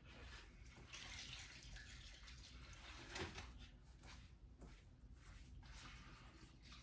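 Faint water running from a tap and splashing unevenly into a sink, with a sharper splash or knock about three seconds in.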